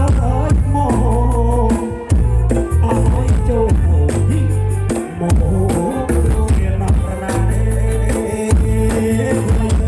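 Loud music with heavy bass, a steady beat and some singing, played through a large open-air cinema PA system during a sound test.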